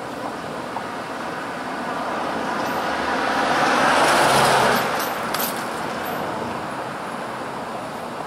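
A car drives past on a city street. Its noise swells to a peak about four and a half seconds in, then drops away quickly over a steady hiss of distant traffic.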